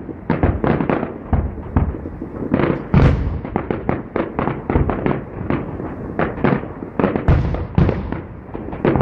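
Aerial fireworks display: a rapid, irregular series of shell bursts going off, several bangs a second, some louder than others.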